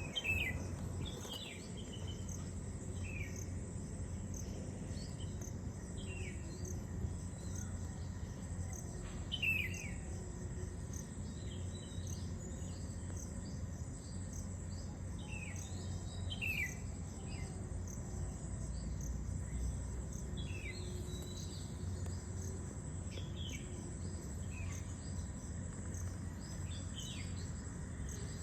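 Small birds chirping: short high falling notes every second or two, over a steady high insect drone and a low steady rumble.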